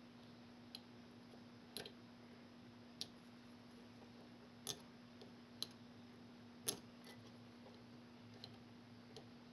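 Faint, irregular clicks, about eight of them, as a brass rod taps and scrapes against the copper segments of a DM-36-D dynamotor's commutator. A faint steady hum sits underneath.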